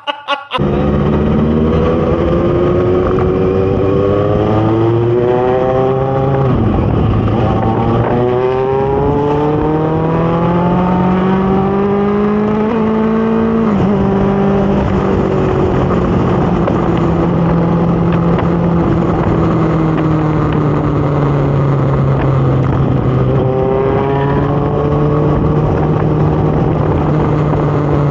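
Kawasaki Z900's inline-four engine with a full-system aftermarket exhaust, pulling away and accelerating through the gears: the pitch climbs, drops sharply at each of two upshifts, then holds at a steady cruise before rising again near the end.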